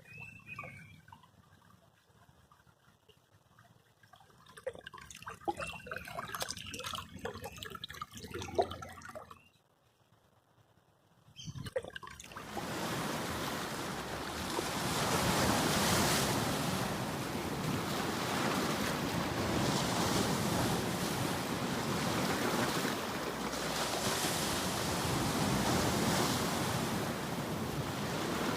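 Water trickling and splashing in small irregular bursts. After a short lull, sea waves rush steadily, swelling and easing every few seconds.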